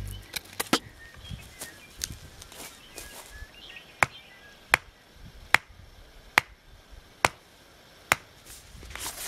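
Small hatchet chopping into wood. A few lighter knocks and taps come first, then from about four seconds in, six sharp, evenly spaced strikes a little under a second apart.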